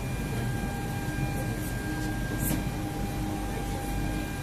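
Steady ventilation hum with a constant high-pitched whine, from the cooling and air conditioning around racks of flight-test computer equipment inside an airliner cabin.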